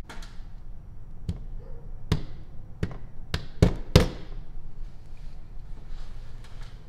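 A series of sharp knocks and clicks from handling a vintage Canon Dial 35 camera, about seven over four seconds, the last two the loudest, as the opened camera is put down on a cutting mat.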